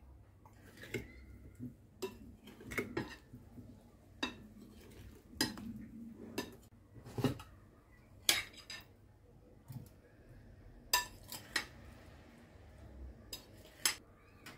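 Metal spoons clinking and knocking against glass bowls and a glass baking dish as oiled, spiced potato chunks are stirred and spooned out: irregular sharp clinks, about fifteen of them, with soft scraping in between.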